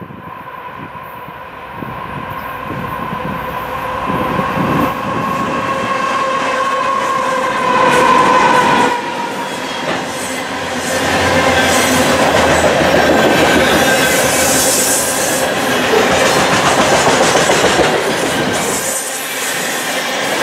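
A CN freight train's GE diesel locomotives approaching with the horn sounding; the horn grows louder, then cuts off about nine seconds in as they pass. A long, heavy loaded potash hopper train then rolls by at track speed, its steel wheels clattering and squealing on the rails.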